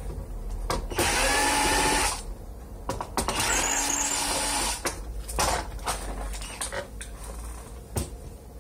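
Cordless drill-driver backing screws out of an emergency-light housing in short runs of about a second each, the motor whine shifting in pitch as it spins up and slows; then a few clicks and knocks as the housing is handled.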